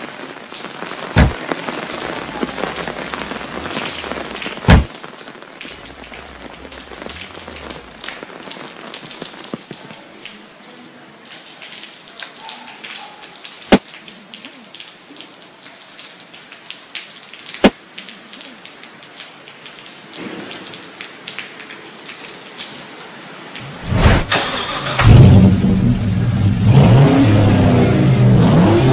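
Steady rain with a few sharp cracks of thunder; about 24 seconds in, a Chevrolet Camaro SS V8 is started with a loud burst and runs on loudly.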